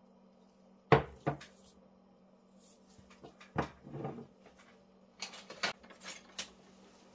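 A small cup knocked against the table as thick soap batter is dropped out of it: two sharp knocks about a second in, another knock and a short clatter around three and a half seconds, then lighter clicks near the end.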